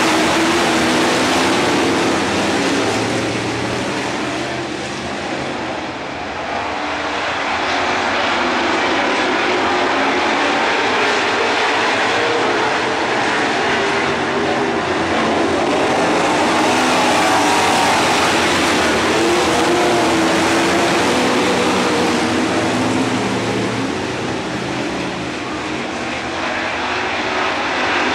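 A field of dirt-track stock cars racing around the oval, their V8 engines at full throttle in a loud, continuous drone whose pitch shifts as the cars accelerate through the corners. The sound swells and eases as the pack circles, dipping briefly twice.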